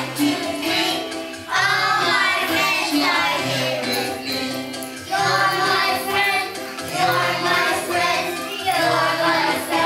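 A group of young children singing a song together in phrases, with a steady instrumental accompaniment underneath.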